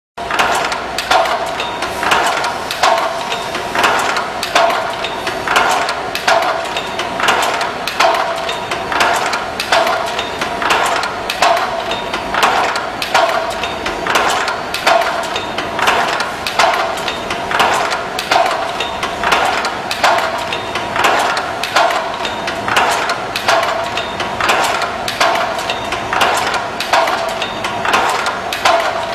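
Iron chain-making machine running in a steady repeating cycle of sharp metallic clanks and clicks, about one cycle a second.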